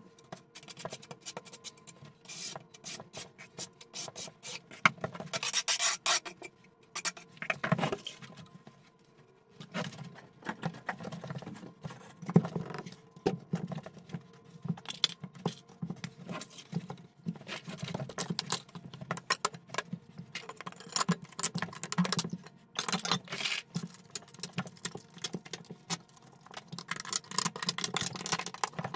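Hand work while setting large floor tiles: irregular scraping and rubbing of a trowel and tiles on mortar, among many small clicks and taps of plastic leveling-system clips and wedges. A few longer scrapes stand out, about five, twelve and twenty-two seconds in.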